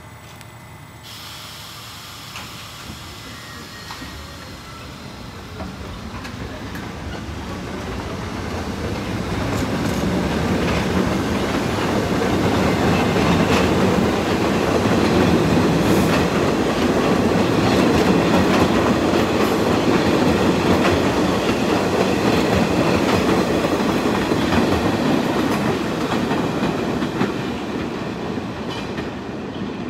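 R68A subway train pulling out of the station, wheels clicking over the rail joints with a light squeal, growing louder as it gathers speed and passes, then easing off near the end as the last car goes by.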